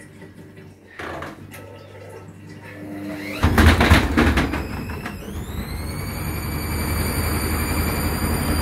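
Hoover DXC58W3 washing machine spinning with an extremely unbalanced load. After a single knock about a second in, the drum picks up speed and bangs loudly for about a second, then the motor's whine rises and holds steady as the spin speeds up.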